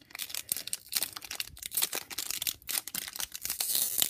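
Foil wrapper of a hockey card pack crinkling and rustling as hands work at tearing it open, in irregular crackles that grow denser near the end.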